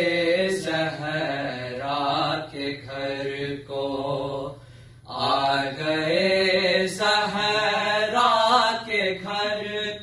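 Two male voices chanting an Urdu noha (elegy) unaccompanied, in long, slow, drawn-out melodic phrases, with a short breath pause about five seconds in.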